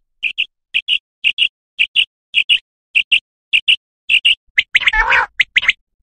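Common quail calls played as a hunting lure: short two-note calls repeated about twice a second, then a quicker run with a harsher rasping note about five seconds in.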